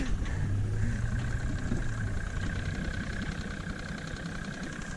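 Engine idling steadily with a low hum.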